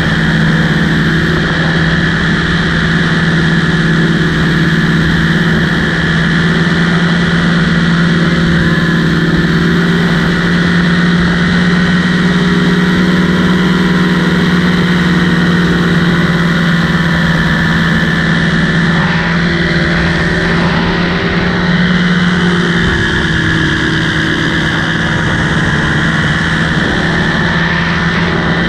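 Light aircraft's engine and propeller running steadily in flight: a loud, constant hum whose pitch barely changes, wavering slightly about two-thirds of the way through.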